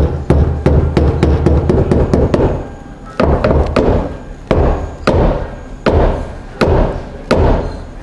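Fuel pump housing on top of the fuel tank being struck over and over with a hand tool: a run of sharp knocks and heavier thumps, several a second. The pump is being beaten to jar a dead, non-running fuel pump into turning.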